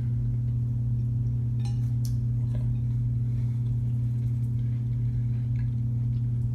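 Steady low electrical hum, with a few faint light clicks about two seconds in.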